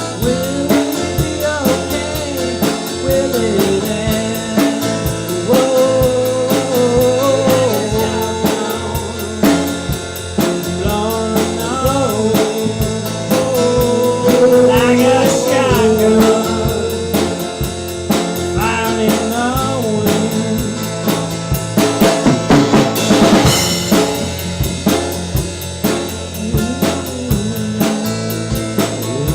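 Band playing a blues-rock song on drum kit and electric guitars, with a wavering, bending melody line over the rhythm. A loud crash comes about three quarters of the way through.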